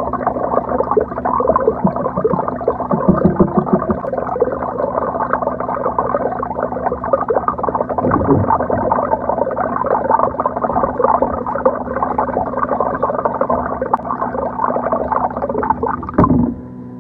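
Liquid glugging and gurgling steadily as a bottle is emptied into a large plastic drink dispenser, stopping abruptly near the end.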